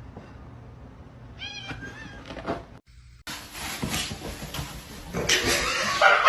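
A cat meowing a short call about a second and a half in. After a brief break there is a louder stretch of rustling noise.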